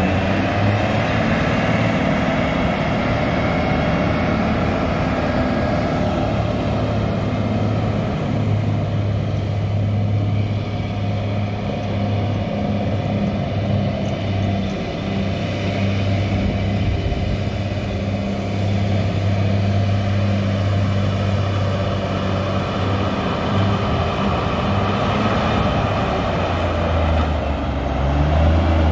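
Diesel engine of a 1979 International Transtar 4200 dump truck running steadily as the truck is driven around. It grows fainter midway and louder again near the end as the truck comes back.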